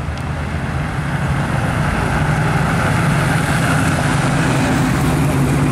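Road traffic passing close by, including classic cars: a steady low engine rumble with tyre and road noise that grows louder over the first couple of seconds as the vehicles approach, then holds.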